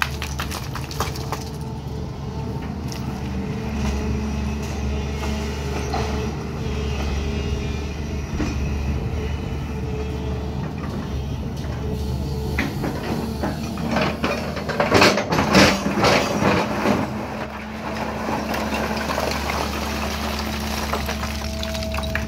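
SANY crawler excavator's diesel engine running steadily under load with a held hydraulic whine. About two-thirds of the way through, a few seconds of loud clattering and scraping of rock against the steel bucket.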